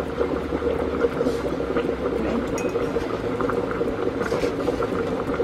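Rice with peas and carrots bubbling and sizzling steadily in an aluminium pot as its last cooking water is absorbed, with a fork stirring through it and now and then clinking against the pot.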